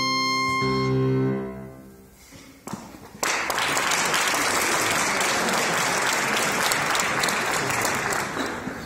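A clarinet holds a final note that stops about a second in and fades away. After a brief hush, audience applause breaks out about three seconds in and keeps going steadily.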